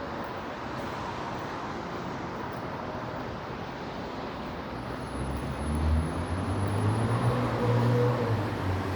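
Downtown street traffic noise, with a motor vehicle's low engine hum growing louder about five seconds in.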